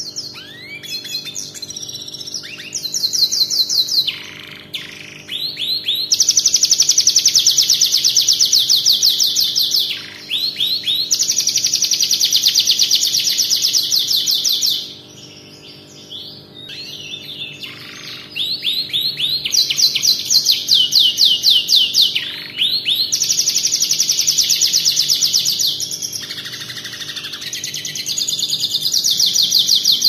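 Domestic canary singing, its song tutored with red siskin, ciblek and prenjak phrases. It sings long, very fast trills of rapidly repeated high notes, each lasting several seconds, with short breaks and quicker chirping phrases between them.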